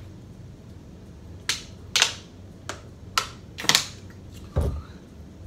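Plastic water bottle crackling sharply about five times in quick succession as it is gripped and drunk from, followed by a dull low thump near the end.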